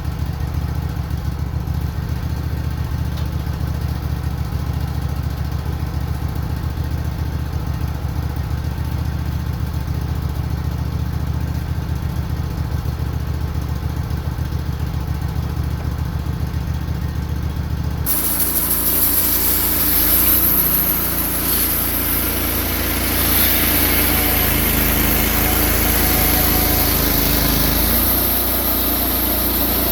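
Wood-Mizer LT15 Go sawmill running steadily. About two-thirds of the way through, the sound changes suddenly to a harsher, hissing noise as the band blade cuts through a pine log.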